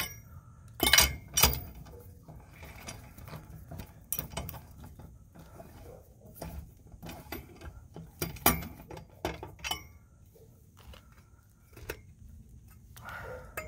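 L-shaped socket lug wrench clinking and clanking against the lug nuts and chrome wire wheel as the nuts are snugged down by hand. Irregular sharp metal clanks, the loudest about a second in and again past the middle.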